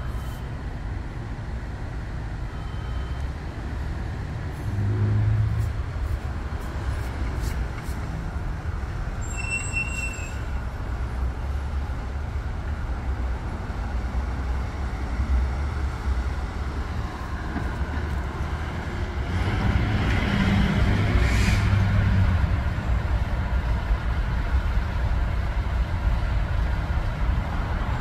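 Fire engine's diesel engine rumbling as the truck pulls away and drives off down the street, with road traffic noise. The rumble swells for a few seconds about twenty seconds in.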